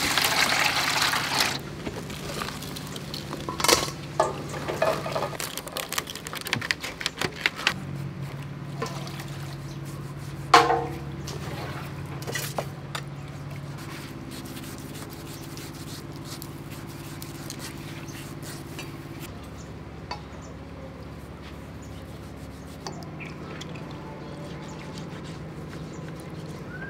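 Water pouring into a metal basin for about a second and a half, followed by scattered clicks, knocks and splashes as lotus stems are scrubbed and moved around in the water-filled basin.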